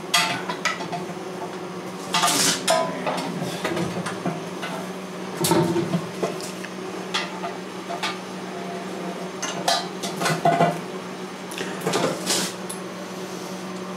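Irregular metallic clinks, taps and rattles of a metal fuel tank and strap hooks being handled by hand as a hooked strap is fastened around the tank. A steady low hum runs underneath.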